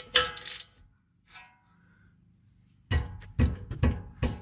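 Steel ratchet and socket clinking as they are set on an 18 mm rear brake caliper bracket bolt, then, about three seconds in, several heavy, irregular clunks as the ratchet is pulled to break the bolt loose.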